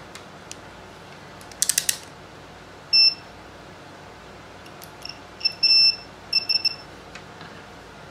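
Digital multimeter's continuity beeper sounding in short, on-off beeps of one steady high tone as test probes touch points on a monitor power-supply board; each beep marks a closed circuit between the probe tips. A quick run of clicks comes about two seconds in.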